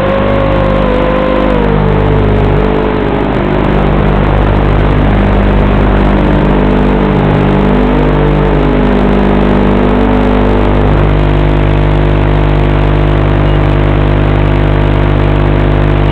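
Eachine Racer 250 Pro racing quadcopter's brushless motors whining, the pitch sliding and wavering with throttle, then holding steady from about eleven seconds in.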